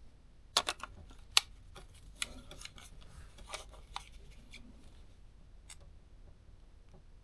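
Scattered small sharp clicks and taps of small parts being handled and refitted on a camera lens, a few seconds apart, the loudest about a second and a half in.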